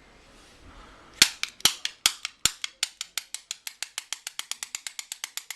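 A bump key fitted with dampeners, struck over and over in a pin tumbler lock to bump it open: sharp metallic taps start about a second in, a few a second at first and then speeding up to a fast steady run of about seven a second.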